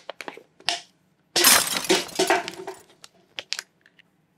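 Thin plastic water bottle crackling and clicking as it is handled and tipped, with a loud burst of crackle and splash for about a second and a half as water goes through a funnel into a glass gallon carboy.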